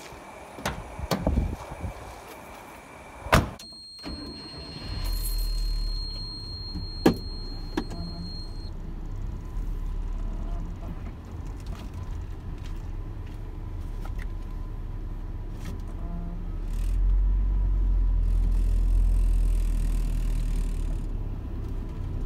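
Keys jangling and a few clicks, then a car door slams shut about three and a half seconds in, and a high steady tone sounds for about five seconds. The Mazda B2200 pickup's engine starts and runs, heard from inside the cab as a steady low drone that grows louder about seventeen seconds in as the truck drives on.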